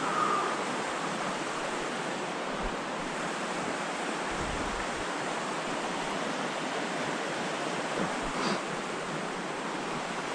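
Rain-swollen creek rushing steadily over rocks, a continuous hiss of fast, high water.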